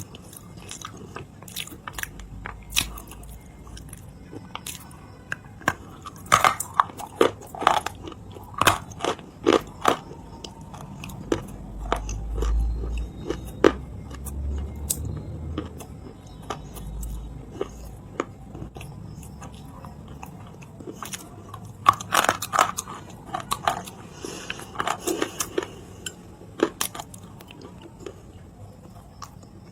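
Close-miked biting and chewing of dry edible clay, a string of sharp crunches and crackles in two dense clusters, near the start and again in the second half, with softer chewing between.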